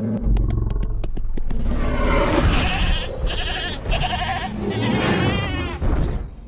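Tyrannosaurus rex roar sound effect. A deep rumble and a quick run of clicks come first, then a long, loud roar that wavers in pitch and breaks briefly once or twice before it dies away near the end.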